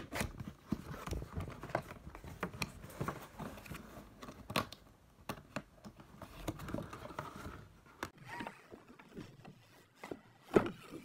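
Cardboard box with a plastic window being opened and handled: scattered taps, scrapes and knocks of fingers and the box flaps, with a louder knock near the end.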